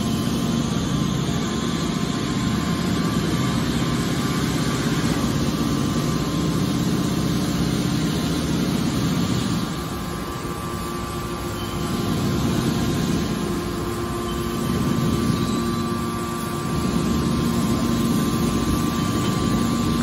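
Hydraulic scrap steel wire baler running, its pump and motor giving a steady hum with a whine, shifting in load and dipping in level a few times as the rams open the discharge door and push the compressed steel-wire bale out.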